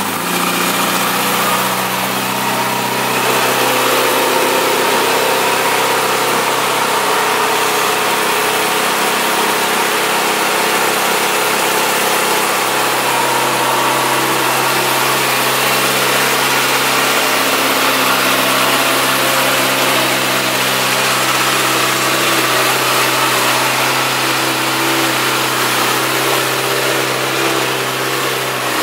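2009 Kawasaki ZX-6R Ninja's 599 cc inline-four engine, just started, idling steadily.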